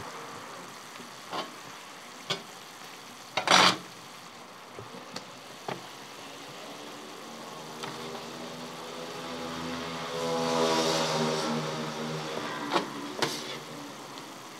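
Meat sizzling on a large steel tantuni pan, with sharp knocks and clicks of work at the pan, the loudest a little over three seconds in. From about eight seconds a passing motor engine hums in, loudest around eleven seconds, then fades.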